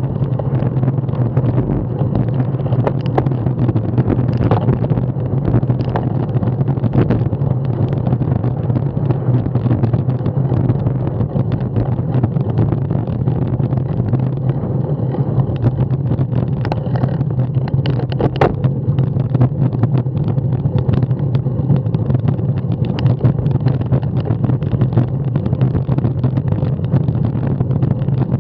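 Steady rumble of wind and tyre noise picked up by a camera mounted on a road bicycle rolling on tarmac, with scattered sharp rattling clicks from bumps in the road.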